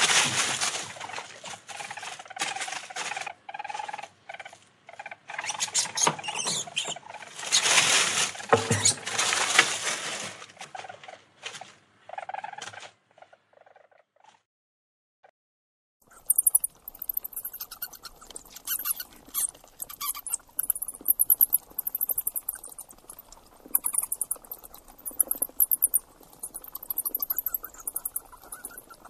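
A coypu (nutria) chewing food, with loud irregular crunching, for about the first 13 seconds. After a few seconds of near silence, a colony of flying foxes (fruit bats) chatters with rapid, high-pitched squeaks.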